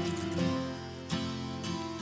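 Background music led by acoustic guitar, with new chords struck near the start and again about a second in.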